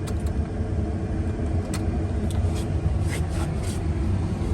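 Diesel engine of a Kobelco SK140 crawler excavator running steadily with a low, even hum, with a few faint clicks over it.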